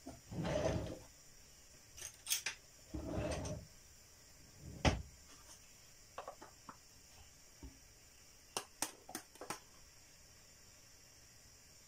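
A metal spoon scraping and tapping against a plastic tub as butter is scooped out and set on a grill pan: two longer scraping sounds in the first few seconds, then scattered sharp clicks and knocks, one loud knock near the middle and a quick run of clicks later on.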